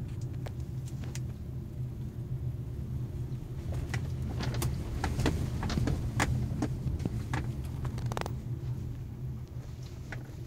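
Car driving on a rough dirt road, heard from inside the cabin: a steady low engine and tyre rumble, with frequent short sharp clicks and knocks, most of them between about four and seven seconds in.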